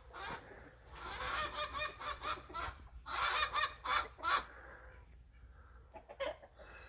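Domestic hens clucking and squawking, busiest in the first four seconds, then dying down to a few faint calls.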